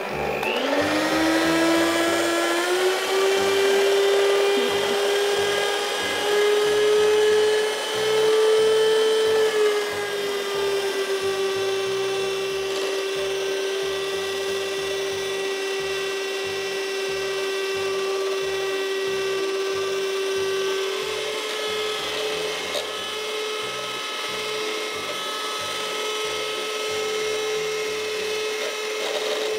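Electric hand mixer whipping cream: its motor whines up to speed at the start, then runs steadily. The pitch drops slightly about ten seconds in and rises again about twenty seconds in.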